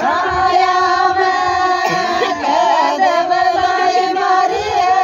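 Group of women singing a Rajasthani Meena folk wedding song (Meena geet) together, in long drawn-out notes.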